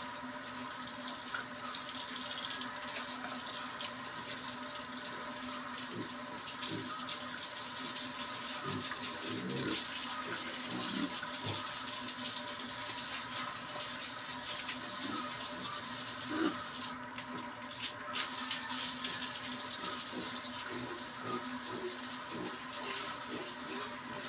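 A garden hose spraying water onto pigs and a concrete pen floor: a steady rush and splash of water.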